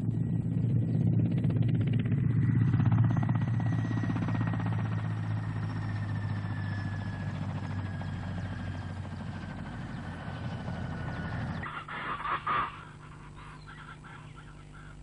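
Mi-8-type military transport helicopter running close by as it lands: rapid rotor chop over a steady low drone and a high turbine whine that falls slowly in pitch, the whole sound easing down over the seconds. It cuts off abruptly about twelve seconds in, giving way to a much quieter jungle background with a brief bird call.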